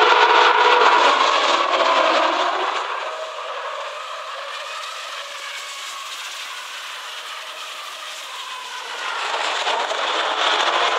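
2013 Formula One cars' 2.4-litre naturally aspirated V8 engines screaming at high revs as the field accelerates away from the race start. The sound fades to a more distant drone in the middle and swells again near the end as more cars come past.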